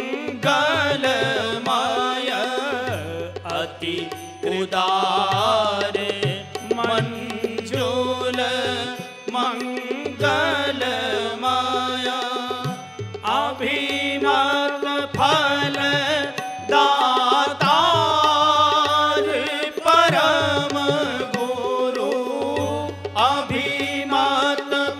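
A man singing a Hindi devotional bhajan, accompanied by harmonium with low held notes and by tabla.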